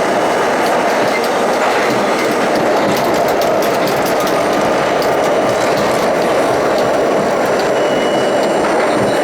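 A Budd-built R32 subway car running steadily through a tunnel, heard from inside the car: a constant loud rumble of wheels on rail, with scattered clicks over the rails.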